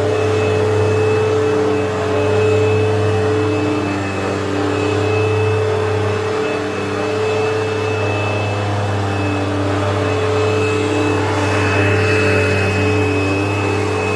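Upright vacuum cleaner running steadily, its motor giving a constant hum with a thin high whine above it, the level rising and dipping slightly.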